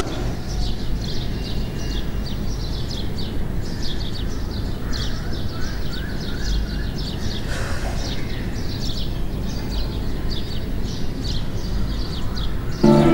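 Small birds chirping over a steady low rumble of background noise, with a short run of lower repeated notes about five seconds in.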